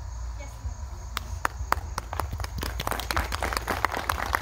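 Audience clapping: a few scattered claps about a second in, building into steady applause from about halfway, over a steady low rumble.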